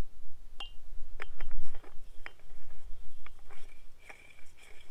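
A string of light, separate metallic clicks and clinks, about a dozen, with one short ring under a second in, as a replacement filter and its metal housing parts are handled and fitted together by hand.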